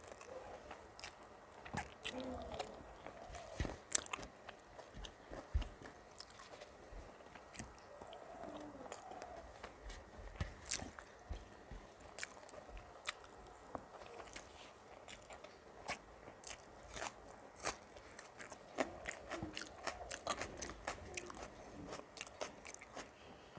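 Close-up mouth sounds of someone chewing food, with irregular crunches, wet clicks and smacks; the loudest crunch comes about four seconds in.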